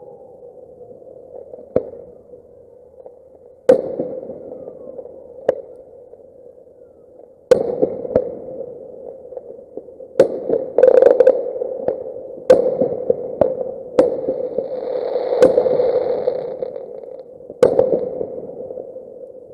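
Fireworks going off: about a dozen sharp bangs at irregular intervals, some trailed by crackling, over a steady hum, with the playback running at double speed.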